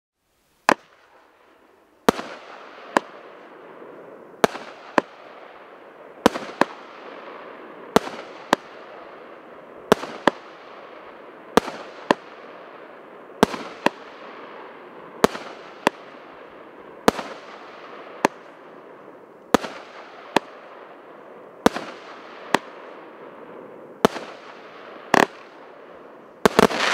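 A 16-shot, 30 mm (1.2-inch) consumer firework cake firing its shots one after another, roughly one every couple of seconds. Each shot is a sharp bang followed by a second pop under a second later, with a crackling hiss between shots. Several shots come close together near the end, the last one loudest.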